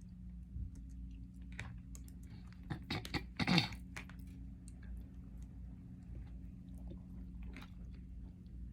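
A person chewing and eating close to the microphone: scattered small mouth clicks and crunches, with a cluster of louder crunchy clicks about three seconds in, over a steady low hum.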